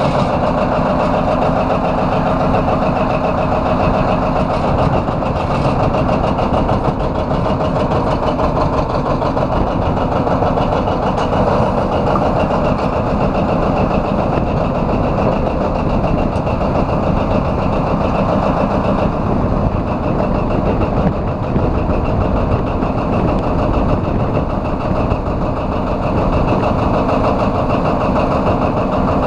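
John Deere 830's two-cylinder diesel engine running steadily.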